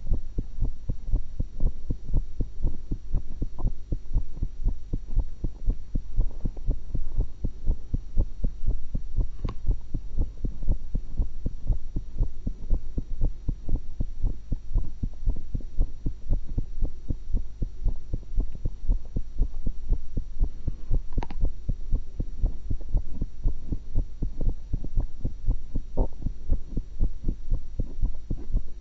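Human heartbeat heard through a stethoscope on the chest: a steady, even rhythm of low thumps. Two sharp clicks break through, about a third of the way in and again about three quarters of the way in.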